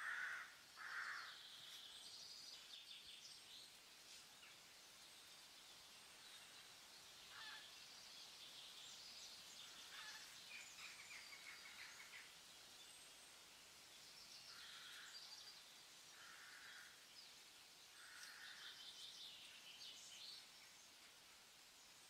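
Faint woodland birdsong: several birds chirping and trilling, with short lower calls, the two loudest right at the start and a few more scattered later.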